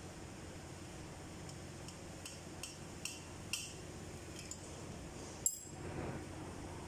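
Light metallic clinks of hand tools on the valve rocker arms and adjusting screws during a tappet clearance adjustment: four or five small ticks in the middle and a sharper click about five and a half seconds in, over a steady low hum.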